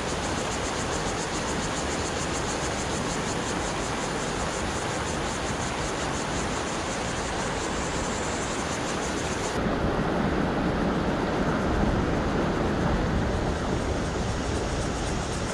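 Fast-flowing mountain stream rushing over rocks and shallow rapids, a steady noise. About ten seconds in it turns deeper and duller.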